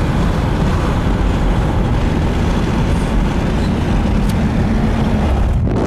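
Steady road noise of a moving car heard from inside the cabin: a low rumble with a hiss over it.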